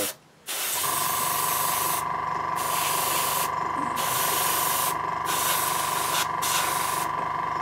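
Airbrush spraying paint in short bursts of hiss, about five in a row, each around a second long. Underneath, an airbrush compressor starts up under a second in and runs with a steady hum and whine.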